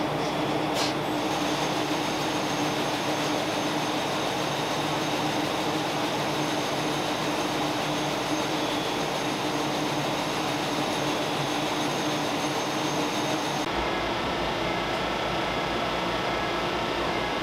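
Steady shop-floor din of a shoe factory: machinery and ventilation hum with a few faint high tones. The low hum changes about fourteen seconds in, and there is a light tick near the start.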